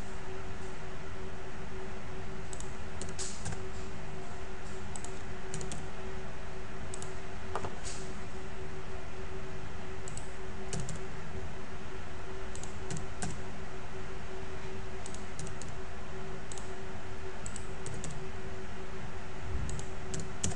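Computer keyboard keys and shortcuts tapped in scattered single clicks, over a steady low electrical hum.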